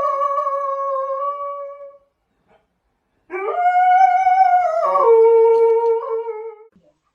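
Dog howling: two long howls, the first slowly falling in pitch and fading out, the second starting a second later, rising, then dropping to a lower held note before it stops.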